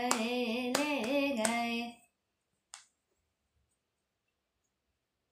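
A woman singing the last drawn-out, wavering notes of a Hindi bhajan, with three hand claps keeping time. The singing stops about two seconds in, followed by one faint click, then near silence.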